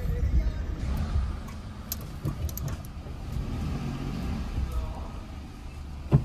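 Car heard from inside its cabin while it creeps slowly into a parking space: low, steady engine and tyre rumble. A sharp knock near the end is the loudest sound.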